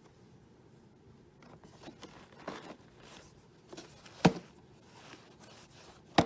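Plastic parts of a Hoover WindTunnel canister vacuum being handled and fitted back into place by hand: rustling and scraping, with two sharp clicks about four and six seconds in.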